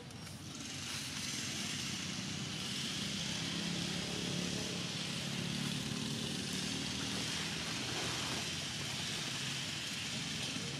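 A motor vehicle's engine running, its low hum swelling over the first few seconds and easing off near the end, as if passing by, over a steady high hiss.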